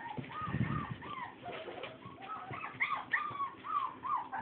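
A litter of young puppies whining and squeaking: short rising-and-falling cries, several a second and overlapping, growing busier and louder near the end.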